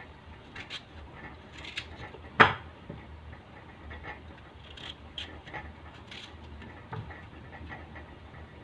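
Knife peeling a vegetable by hand: soft scrapes and small clicks of the blade at irregular moments, with one sharp, loud knock about two and a half seconds in.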